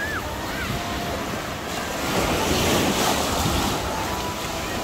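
Small waves of the sea washing up and back over a sandy beach, with wind buffeting the microphone; the surf swells louder about two seconds in.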